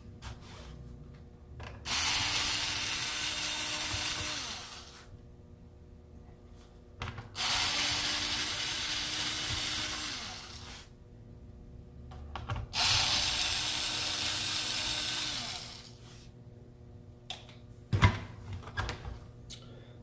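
Cordless electric screwdriver backing long screws out of a laptop's bottom case, three runs of about three seconds each with a steady motor whine. A few sharp knocks near the end.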